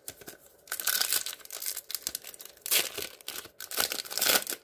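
Foil wrapper of a Panini Score football card pack being torn open and crinkled by hand, in three bouts of crackling: about a second in, near the three-second mark, and again near the end.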